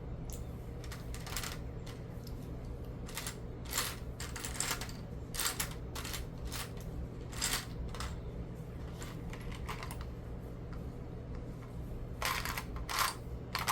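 Small plastic building-brick pieces clicking and clattering as they are handled, in scattered clicks with a quicker cluster near the end, over a steady low hum.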